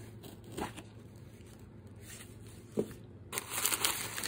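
Crumpled brown packing paper crinkling and rustling as it is pulled out of a gift box, starting suddenly about three seconds in; before that, only soft handling with a couple of light knocks.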